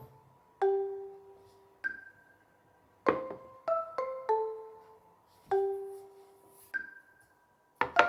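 Background music: a soft melody of struck mallet notes, like a marimba or glockenspiel, each note ringing out and fading, played in short phrases with pauses between them.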